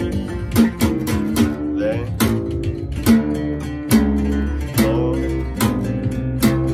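Four-string acoustic bass guitar played with the fingers, a bass line moving through the chords of G, D and C. Each note is plucked with a sharp attack, several times a second, over ringing low notes.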